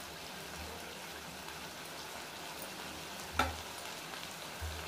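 Chicken pieces frying in oil in a wide metal pan: a steady sizzle, with one sharp click about three and a half seconds in.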